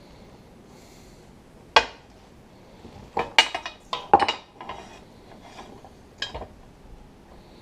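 Metal parts of a tractor seat's suspension being handled and knocked together: sharp clinks and clanks, one a little under two seconds in, a cluster a little past three and four seconds in, and one more past six seconds.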